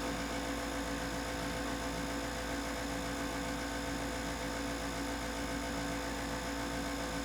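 Steady electrical hum: a constant drone of several fixed tones with no other sounds over it.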